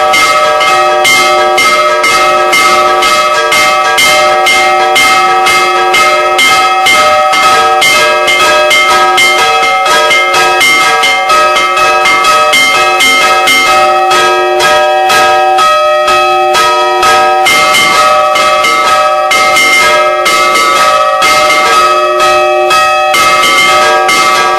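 Church bells of the Chiesa del Carmelo ringing a festive peal (scampanio festivo): several bells of different pitch struck rapidly in a continuous chiming, several strikes a second over their sustained ringing tones.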